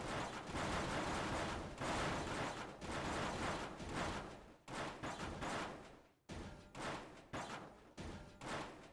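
A rapid run of sharp bangs, dense and overlapping for the first few seconds, then spaced out to a few a second with each one dying away.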